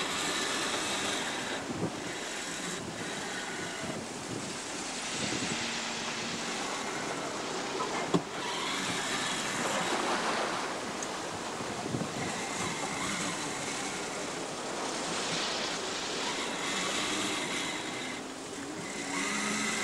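Wind and rushing sea water along a sailing yacht's hull as it runs downwind through swell, the hiss swelling and easing as waves pass, with wind buffeting the microphone. A sharp knock comes about eight seconds in and a lighter one a few seconds later.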